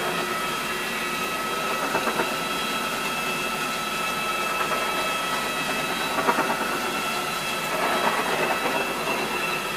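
RotoVac rotary carpet extraction tool running over carpet: its spinning heads scrub the pile while the vacuum line sucks through them, a steady rushing noise with a high whine. A few brief swells come as the tool is pushed across the carpet.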